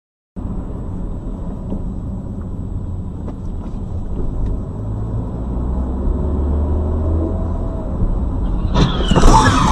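Low engine and road rumble heard from inside a car on a dashcam, growing slightly louder. About nine seconds in, a sudden loud, harsh crash breaks in and becomes the loudest sound.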